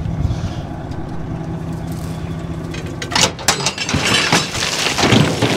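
Truck engine running steadily; from about three seconds in, a loud rattling clatter and rush of rocks sliding out of the tipping tray.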